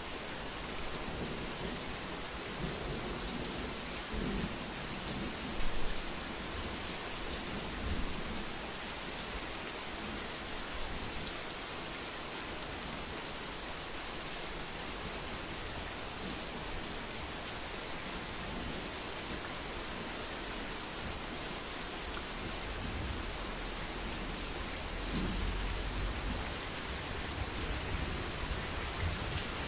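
Heavy rain falling steadily, with low rumbles of thunder swelling about six seconds in and again about twenty-five seconds in.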